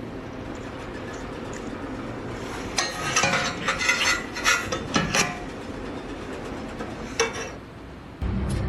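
Metallic clinking and clattering, a quick run of sharp strikes a few seconds in, then one more click, over a steady low background noise.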